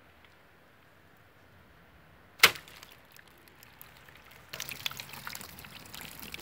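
A shot from a 15 lb children's compound bow: one sharp, loud crack about two and a half seconds in as the string is loosed and the carbon arrow with its broadhead hits the target block. From about four and a half seconds, a run of rustling and small clicks as the camera and tape measure are handled.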